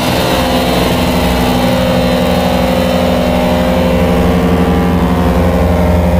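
A loud, steady drone of several held pitches over a low pulsing rumble, part of a harsh electronic noise / black metal track.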